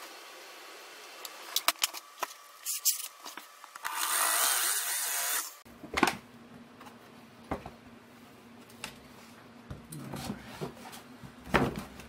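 Power drill briefly drilling the head off a screw in a shop vac's motor housing, a high whirring grind of about a second and a half that stops abruptly. Clicks and knocks of parts and tools being handled come before and after, with a sharp knock just after it.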